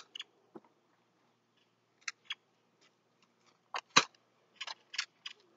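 Scattered sharp clicks and snaps from Adventure Force toy foam-dart blasters being cocked and fired, with the loudest snap about four seconds in.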